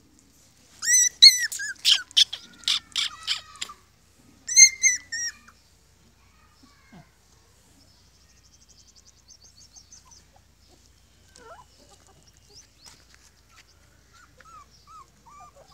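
Puppies yelping: a quick run of loud, high-pitched cries about a second in lasting some three seconds, then a shorter burst, followed by faint whimpers near the end.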